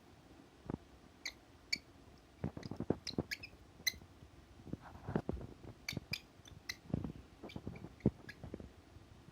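Cockatiel making scattered short clicks and tiny high squeaks, with soft low thumps mixed in.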